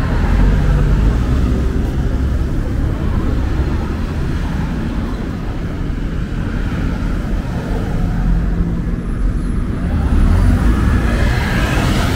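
Road traffic on a city street: vehicles passing with a continuous low rumble, one passing louder near the end.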